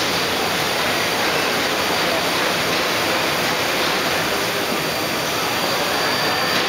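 Steady din of a large, busy exhibition hall: an even wash of noise from many people and machines, with no single sound standing out.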